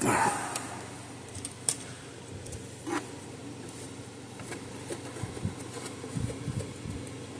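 Handling noises of small parts and tools on a workbench: a rustle at the start, then a few scattered light clicks and knocks, over a steady low hum.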